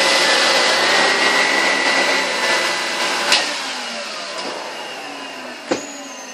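Numatic Henry cylinder vacuum cleaner running with a turbo brush head, sucking as it passes over carpet. About three seconds in there is a click, after which the sound gradually fades and falls in pitch as the motor winds down; a sharp knock comes near the end.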